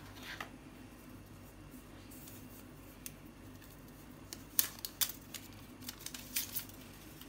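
Small clicks and crinkles of hands handling an iPad power adapter and its cardboard box tray, with a cluster of sharp clicks from about four and a half to six and a half seconds in. A low steady hum runs underneath.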